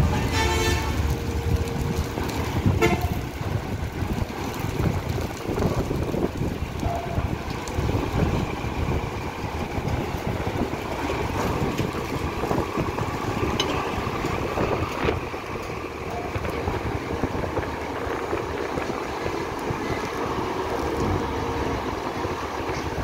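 Buses and a truck driving off a ferry ramp onto the landing, their diesel engines and tyres making a continuous low rumble. A vehicle horn sounds in the first second, with a second short toot about three seconds in.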